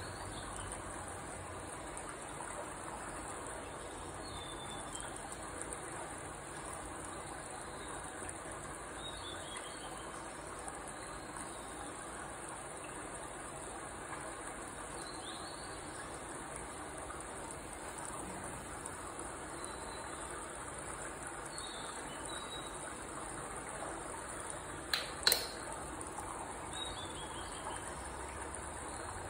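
Steady background hiss with a constant high whine, faint short falling chirps every few seconds, and two sharp clicks about 25 seconds in.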